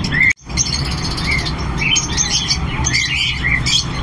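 A caged flock of Fischer's lovebirds chirping, many short high chirps overlapping. The sound drops out for a moment about a third of a second in.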